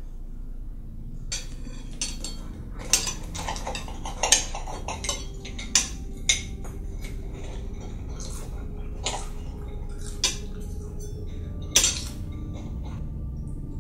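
Metal knife and fork clinking and scraping on a ceramic plate while cutting food: a quick run of sharp clinks, busiest in the first half, with one more loud clink near the end, over a low steady hum.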